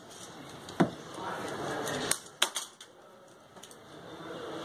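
A smartphone's cardboard retail box being handled on a desk: a sharp knock about a second in, a few quick clicks and taps around the middle, then soft scraping as a pen point is worked along the box's seal.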